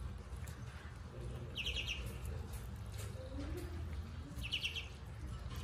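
Ducklings peeping: two short, high peeping calls about three seconds apart, over a steady low hum.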